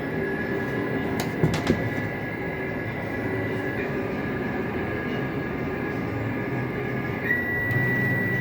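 CNC turning-milling machine running with a steady hum and a thin high whine. There are a few sharp clicks about a second and a half in. Near the end, the whine steps up in pitch and holds.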